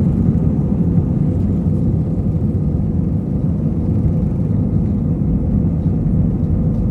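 Steady low rumble of an airliner's jet engines and rushing air heard inside the cabin in flight, with a faint steady hum.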